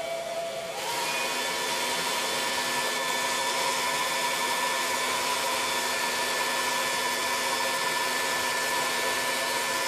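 Hair dryer blowing steadily, drying freshly painted foam; its motor whine rises in pitch about a second in and then holds steady.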